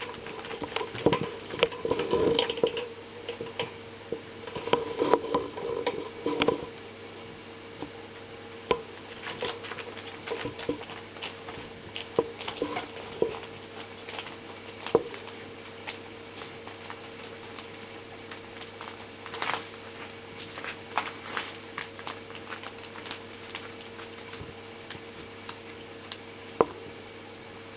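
Puppies moving about: claws pattering and scrabbling, busy for the first six seconds or so, then only scattered taps and clicks, over a steady low hum.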